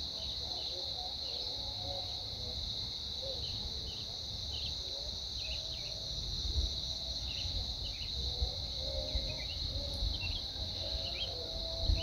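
Evening insect chorus: a steady high-pitched trill of crickets, with short faint chirps scattered through it and a low rumble underneath.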